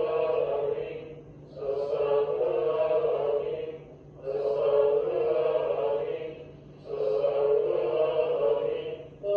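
Congregational dhikr: voices chanting the names of God in unison. A phrase repeats about every two and a half seconds, with a short breath between repeats.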